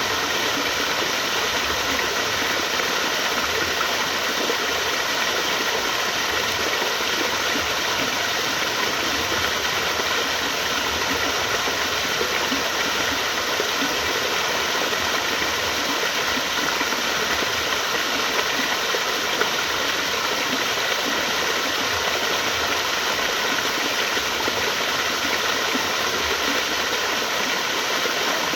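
Flowing water rushing in an even, continuous stream, unchanging throughout.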